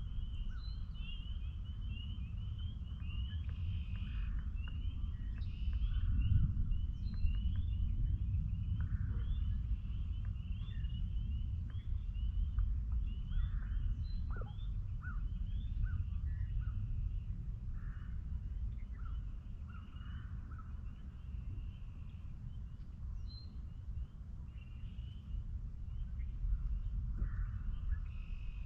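Chorus of spring peepers: many short, high peeps repeating rapidly and overlapping, with scattered lower calls among them. A steady low rumble sits underneath.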